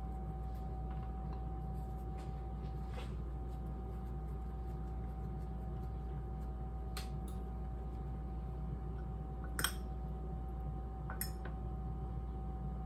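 Steady low kitchen hum with a faint constant tone, under a few light clicks and taps from hands handling biscuit dough, paper towel and a plate. The sharpest click comes about three-quarters of the way in.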